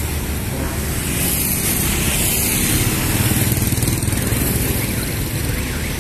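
Steady road traffic noise, the running engines of passing motorbikes and vehicles.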